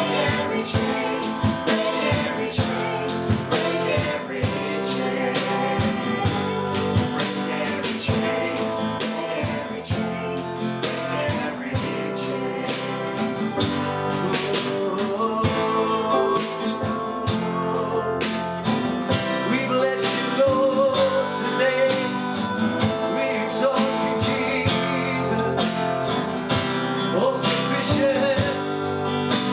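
Congregational worship song: voices singing over guitar and other instruments.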